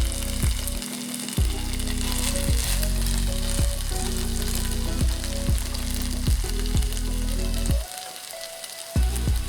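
Sausages sizzling as they stir-fry in a frying pan, a steady crackling hiss. Background music with a run of low notes plays under it and drops out for about a second near the end.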